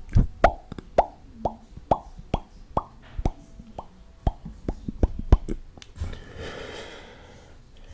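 Close-miked mouth pops made with the tongue and lips, about two a second, each with a quick drop in pitch. Smaller wet clicks follow, then a breathy hiss about six seconds in.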